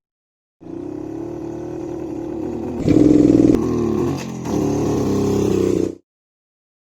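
Motorcycle engine running and revving, starting abruptly after a brief silence, louder with shifting pitch from about three seconds in, then cutting off sharply near the end.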